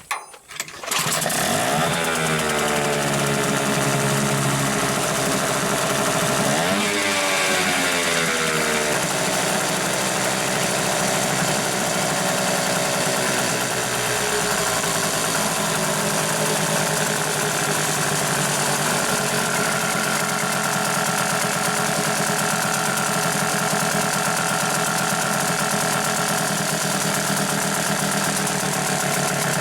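Hangkai 6 hp outboard motor catching about a second in, revving up and down twice, then running steadily, freshly rebuilt after its connecting-rod needle bearing broke up.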